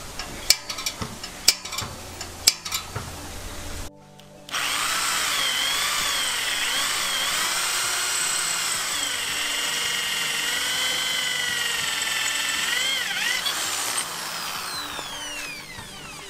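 A few sharp clicks and taps, then from about four seconds in an electric drill whines steadily as it bores through a stainless-steel bracket, its pitch wavering under load. Near the end it eases off and winds down with a falling whine.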